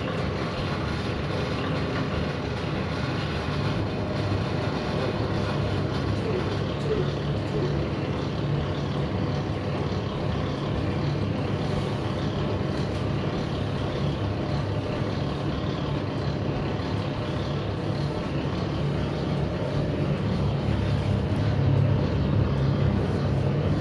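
Motor-driven noodle rolling machine running steadily, a constant mechanical hum.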